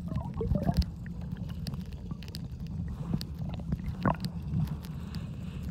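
Muffled underwater sound from a submerged iPhone X's microphone: a steady low rumble of seawater moving around the phone, with a few faint knocks and clicks, the clearest about four seconds in.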